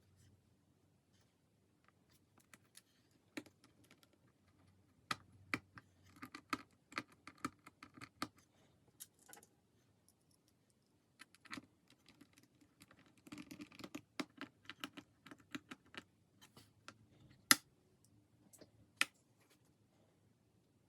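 Irregular small clicks and taps on a laptop, some in quick runs, with two sharper clicks near the end.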